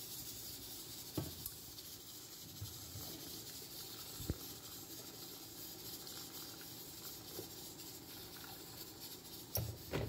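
Hot water poured in a steady stream into a steel cooking pot of meat and onions, splashing, with a few knocks about a second in, at about four seconds and near the end.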